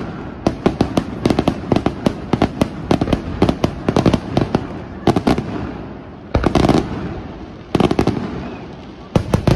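Aerial firework shells bursting in quick succession, a rapid run of sharp reports for about the first five seconds, then a few heavier bangs about a second apart later on.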